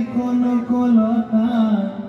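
A single voice singing a melody in long, wavering held notes, chant-like.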